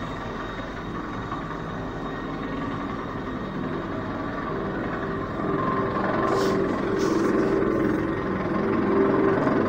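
Helicopter rotor and turbine running as it hovers low over the ground, a steady drone that grows louder a little past halfway.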